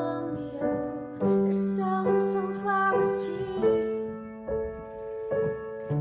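Piano playing held chords that change about once a second, with a woman singing softly over them for part of the time.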